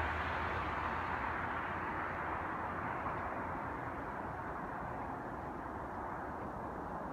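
Jet airliner's engine noise, a steady rushing roar that is loudest at the start and slowly fades away.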